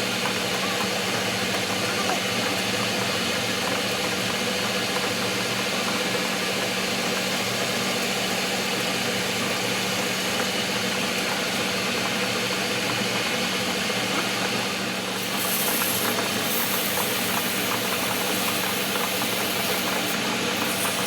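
Workshop machinery running steadily, with a constant hum and rattle. A brief high hiss comes in about fifteen seconds in and again near the end.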